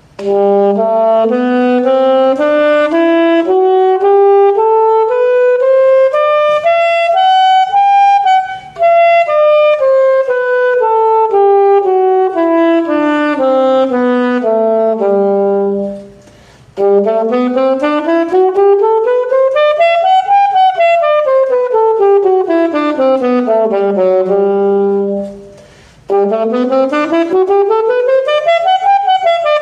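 Saxophone playing the E major scale up and down over two octaves, one note at a time, first slowly, then twice more at a faster pace, with brief pauses for breath between the runs.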